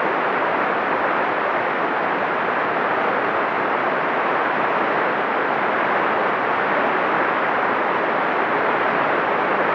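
A steady, loud hiss of noise with no pitch or rhythm, like static.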